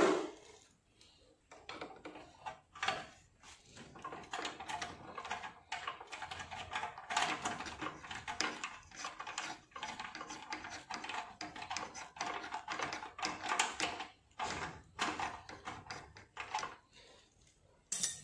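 Ratchet wrench on a long socket extension clicking in rapid runs with short pauses as it turns a muffler mounting bolt on a motorcycle exhaust, after a single sharp knock at the very start.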